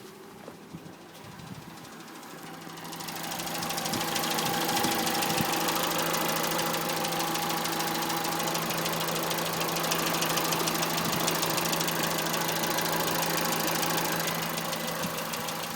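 Citroën C2 VTS petrol engine running at idle with a rapid tapping from the engine, which the owner calls horrible and cannot explain. It gets louder about three seconds in and then holds steady.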